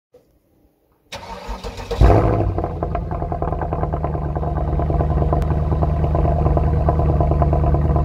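Mercedes C63 AMG's 6.2-litre V8 cranked by the starter about a second in, catching at about two seconds with a sudden burst of revs, the loudest moment, then settling into a steady idle, heard at the quad exhaust tips.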